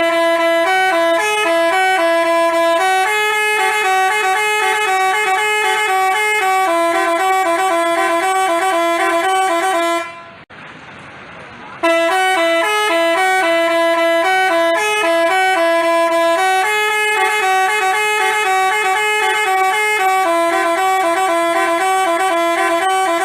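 Basuri telolet multi-tone bus horn playing a tune of stepping horn notes for about ten seconds, breaking off briefly, then playing the tune again.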